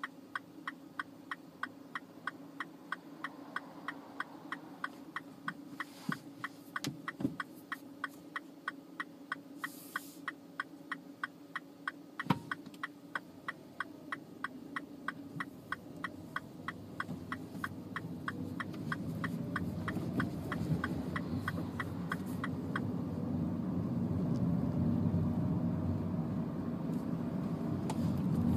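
Turn-signal indicator ticking steadily inside a MINI Cooper at about two ticks a second over the idling engine, with a sharp knock about twelve seconds in. The ticking stops a little over twenty seconds in, as the engine gets louder and rises in pitch while the car pulls away.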